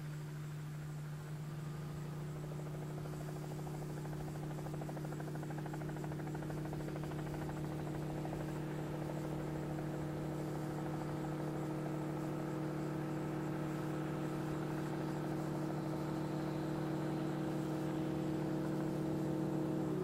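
Fk 12 Comet light biplane's engine and propeller droning steadily in flight, a constant pitch that grows gradually louder as the aircraft approaches.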